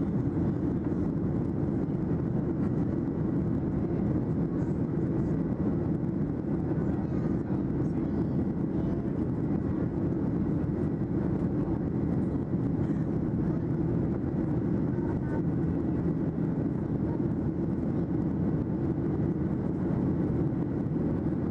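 Steady low rumble of a Boeing 737-800 in its climb, from the cabin: the CFM56-7B engines and airflow heard from a window seat over the wing.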